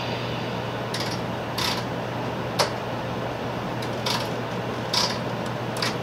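Cabin sound of a moving 500 series Shinkansen: a steady running noise with a low hum, broken by about six sharp, irregularly spaced clicks from the wheels on the track.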